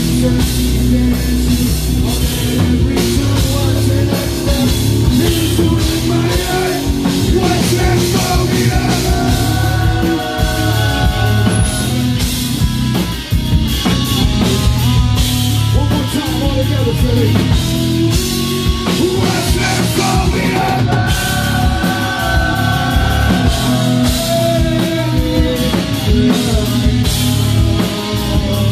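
A nu-metal band playing live: distorted electric guitar and a heavy drum kit, with a man singing over them.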